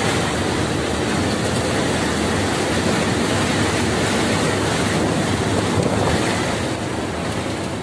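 Strong dust-storm wind rushing and gusting past the truck cab, buffeting the microphone in a loud, steady rush.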